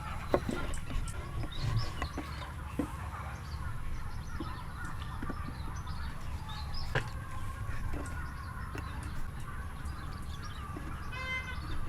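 Scattered light knocks and taps over a steady low rumble, with a short pitched call a little before the end.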